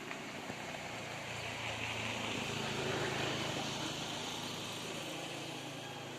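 A motor vehicle's engine passing by, a steady hum that swells to its loudest about three seconds in and then fades.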